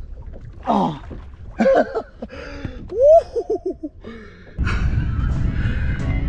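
A man's wordless excited exclamations, then a short laugh of several quick falling notes about three seconds in. About four and a half seconds in, a steady rushing noise sets in.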